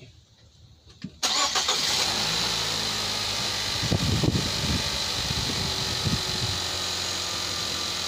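Nissan X-Trail's four-cylinder engine starting about a second in, then running at a steady idle on newly fitted genuine spark plugs.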